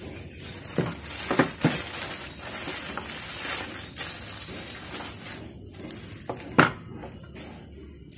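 Clear plastic bag crinkling and rustling as a circular saw is worked out of it, with a few knocks from the handling; the loudest knock comes about six and a half seconds in.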